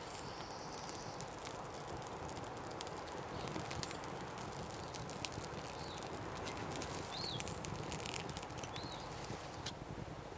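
Small campfire of dry grass and twigs burning, with scattered sharp crackles over a steady hiss.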